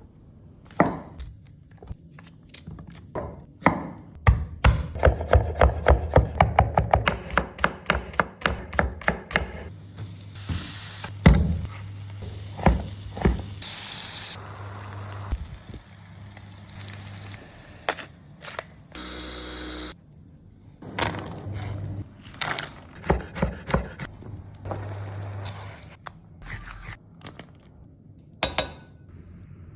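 Kitchen sounds of a dish being prepared: a knife chopping on a wooden board in a fast, even run of strokes, then hissing, scraping and scattered knocks, with a short steady buzz a little past the middle.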